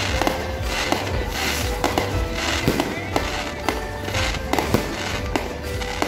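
Music playing, mixed with the repeated sharp bangs and crackle of aerial fireworks bursting.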